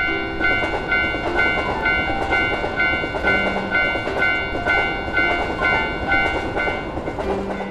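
Railroad crossing alarm bell ringing about twice a second in a steady two-tone 'kan-kan' while a train runs past, the rumble of the train under the bell.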